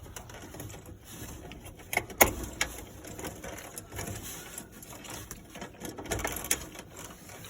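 Scattered light clicks and clatter of tools and parts being handled, with one sharp click about two seconds in and a few smaller ones near the end.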